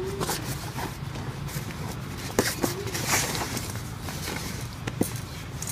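Baby goat moving about on a fabric folding camp chair: rustling and scraping, with a few sharp clicks of hooves or the chair frame. Two brief soft vocal sounds come near the start and about two and a half seconds in.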